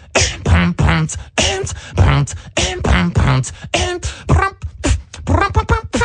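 Human beatboxing: a fast run of mouth-made drum hits, with low kick-like thumps and crisp snare and hi-hat sounds, some with a hummed pitched tone under them.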